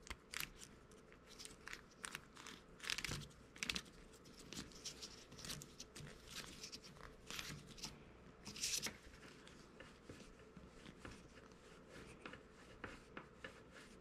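Faint rustling and scattered small clicks of a Neutrik NP3X-B 1/4-inch TRS plug and its rubber-jacketed mic cable being handled, the plug's shell being twisted on, with a few slightly louder clicks about three and nine seconds in.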